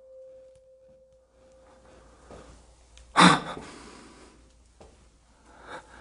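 A steady thin tone that fades out about a second in, then one loud, sharp human breath, like a gasp, about three seconds in, trailing off.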